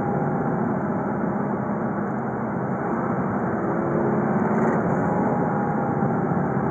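Volkswagen Golf V 2.0 TDI four-cylinder diesel (BKD) running steadily on the move, mixed with road noise, with no revving or turbo flutter standing out.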